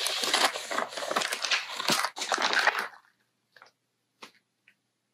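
Clear plastic zip bag crinkling and rustling as a hand rummages in it and pulls the contents out; it stops about three seconds in, followed by a few faint ticks.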